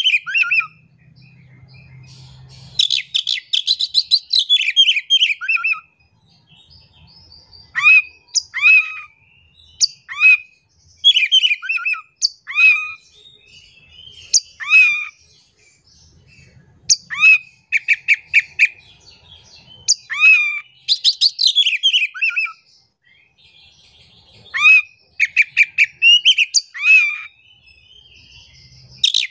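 Oriental magpie-robin singing: varied phrases of clear whistled notes, many sliding downward, with quick repeated runs, broken by short pauses.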